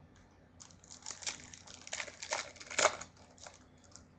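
Crinkling and rustling of trading-card packaging being handled, with a run of irregular sharp crackles that is loudest near the end.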